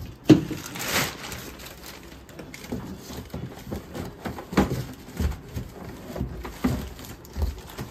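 Plastic packaging wrapped around a ride-on toy car's body crinkling and rustling as it is handled in its cardboard box, with a sharp knock about a third of a second in and a few more bumps and rustles after.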